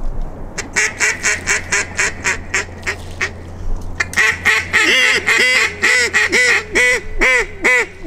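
Duck call blown in runs of quacks imitating a hen mallard: a quick, fainter series in the first few seconds, then louder, evenly spaced quacks from about four seconds in.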